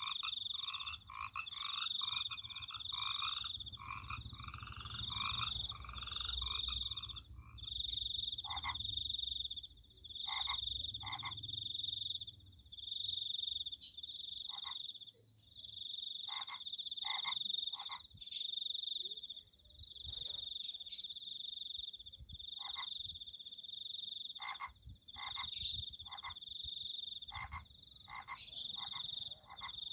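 Night chorus of calling animals: a high, pulsing call repeating in bouts of about a second, with quicker lower calls over the first several seconds and short single notes later.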